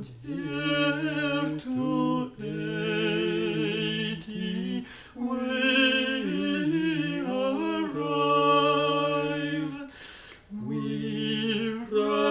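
An early American hymn-setting sung in parts by several voices: slow phrases of long held chords, with short breaks between the phrases.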